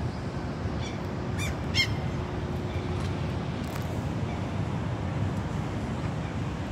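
A gull gives two short calls about a second and a half in, with a fainter one just before, over a steady low rumble of wind on the microphone.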